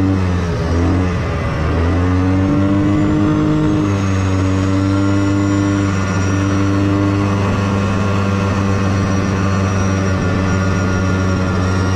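Motor vehicle engine running steadily while driving, its pitch dipping and rising over the first few seconds as the revs change, then holding even.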